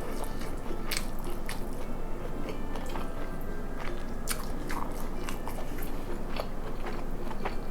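A person chewing food close to the microphone, with many small crisp wet clicks and crunches throughout.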